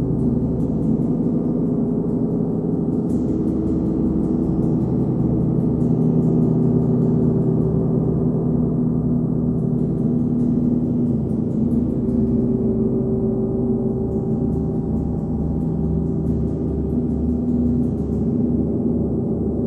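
39-inch Nepalese wind gong sounding a sustained, dense wash of low humming tones, kept going by a homemade hard rubber ball mallet. A regular throb pulses in the deepest tone, and faint high shimmer swells in and out above.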